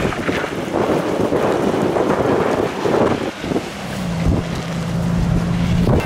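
Strong blizzard wind buffeting the microphone in gusts. A steady low hum comes in about four seconds in and stops just before the end.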